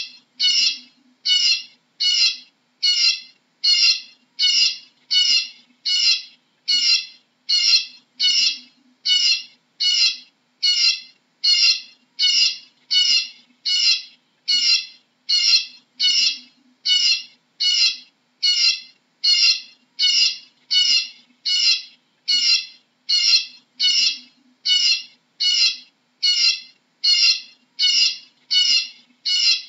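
Eurasian bullfinch calling, one short high call repeated at a very even pace, about three every two seconds.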